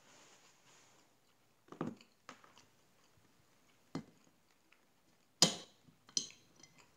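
Glass maple syrup bottle being handled on a table and its cap worked open: a few separate knocks and clinks, the loudest a sharp click about five and a half seconds in, with another just after.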